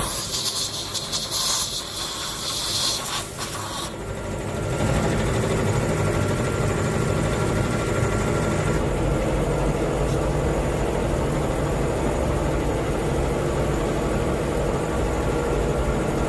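Compressed-air gun hissing into a copper goblet's cup, cutting off about four seconds in; a steady low mechanical hum runs on after it.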